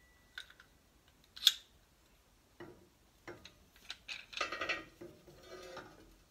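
Metal clamps being set and tightened onto a steel plate: a sharp click about one and a half seconds in, then bursts of metallic clinks and rattles from about two and a half seconds in until near the end.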